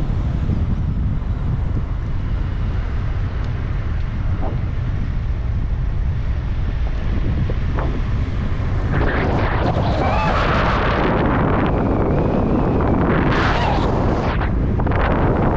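Wind buffeting the microphone of a moving car, a heavy low rumble throughout that grows into louder, gusty rushing about nine seconds in.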